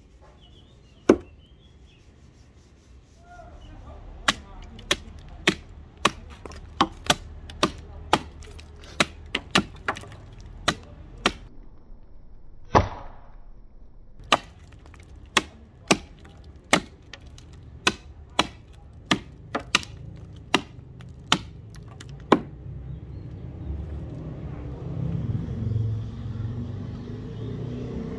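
Small hatchet with a vintage Collins Boy Scout axe head chopping a piece of wood held upright on a chopping block: a run of sharp chops, about two a second, stopping a few seconds before the end. A low background rumble grows louder near the end.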